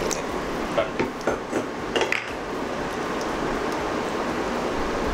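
Water poured from a steel bowl into a pan of simmering chicken gravy, then a wooden spatula stirring it, with a few sharp clinks and knocks of utensils against the pan in the first two seconds, over a steady hiss.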